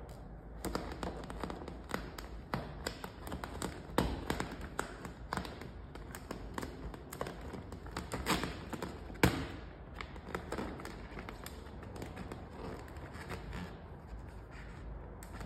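Irregular taps, clicks and crinkles of pearl metallic vinyl wrap film being pulled and pressed by hand around the lower edge of a car door, with a few louder knocks among them.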